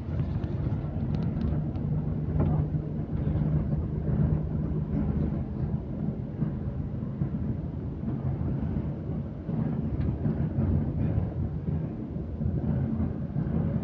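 Steady low rumble of a moving vehicle heard from inside, with a faint hum under it and a few light ticks.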